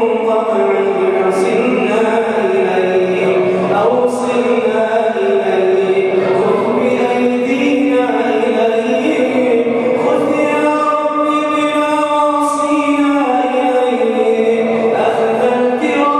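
A man's voice chanting an Arabic du'a into a microphone in a melodic, drawn-out style, holding long notes and sliding between pitches.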